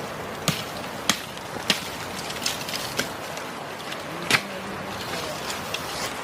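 Footsteps of people walking down a forest trail: sharp crunches or snaps about every half second at first, then scattered steps, the loudest a little over four seconds in, over a steady background hiss.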